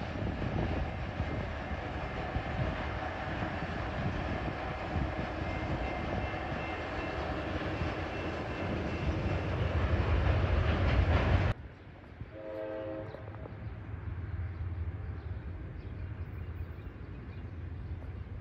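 Freight train cars rolling on the rails, a steady heavy rumble that grows louder and then cuts off abruptly about eleven seconds in. After it, a quieter background holds a short, distant horn note about a second later.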